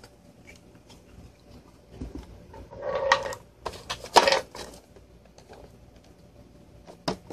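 Handling noise: a cluster of clicks, taps and rustles from the middle on as the plastic-cased portable hard drive is set on a table and its plastic-windowed box is picked up, then one sharp click near the end.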